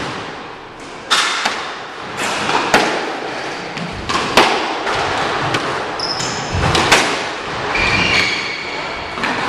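A squash rally: a squash ball struck by rackets and smacking the front and side walls, a string of sharp cracks and thuds at irregular intervals, echoing in the enclosed court. Short high squeaks of court shoes on the hardwood floor come between shots.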